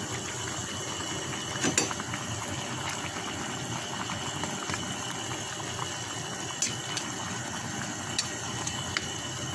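Pot of chicken tinola boiling on the stove, a steady hiss of bubbling broth, with a metal ladle clinking against the pan a few times.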